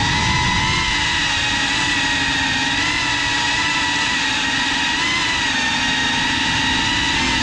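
FPV drone's electric motors and propellers whining at a steady, near-constant pitch, several tones at once over a rushing noise, as it holds an even throttle.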